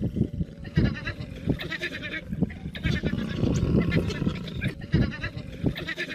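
African wild dogs calling in short bouts of high, fast twittering, several times, over a low, uneven rumbling noise.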